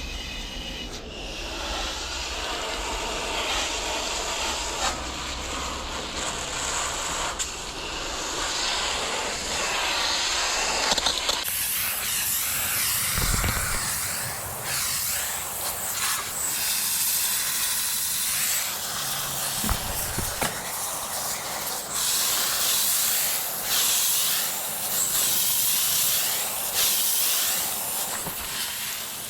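Water spraying from a hose nozzle onto an air-conditioner condenser coil, rinsing off the coil cleaner: a steady hiss that turns sharper and brighter about eleven seconds in.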